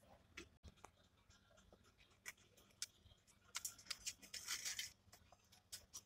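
Aluminium foil being peeled off a small clay pot and crumpled in the hands: a few light taps and clicks, then a crinkling burst from about three and a half seconds in that lasts over a second.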